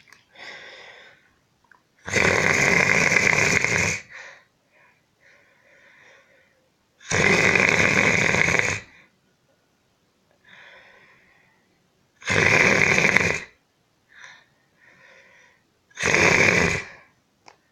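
A man snoring in his sleep: four loud snores, each one to two seconds long and coming every four to five seconds, with soft breathing between them.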